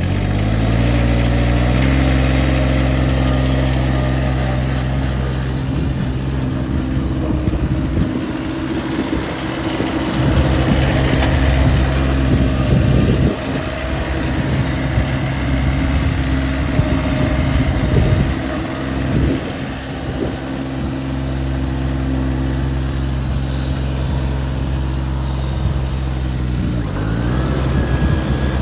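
John Deere X740 riding mower's engine running, its pitch rising in the first couple of seconds as it picks up speed just after starting. It then runs steadily while the mower is driven, and revs up again near the end.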